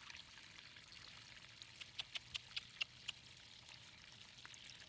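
Faint flowing water running steadily, with a quick run of about seven small sharp ticks starting about a second and a half in.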